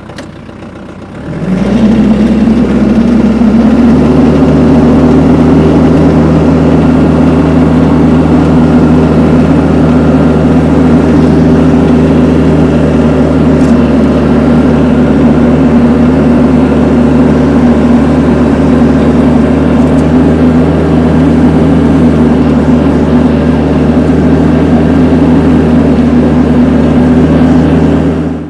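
Tractor engine pulling hard under load as it drags a log up a steep slope on a chain. It revs up about a second and a half in, climbs again a couple of seconds later, then holds a steady, loud drone.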